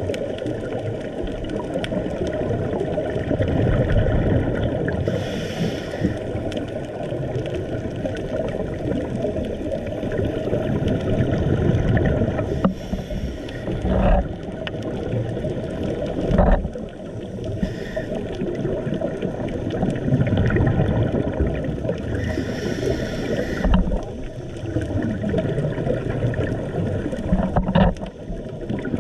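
Underwater ambience through a camera housing: a steady low rumble of water movement, with a scuba diver's regulator exhalation bubbles hissing about every five or six seconds. Two sharp knocks come about halfway through.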